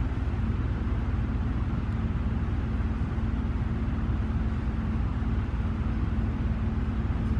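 Steady low rumble with a constant hum running under it and no distinct events.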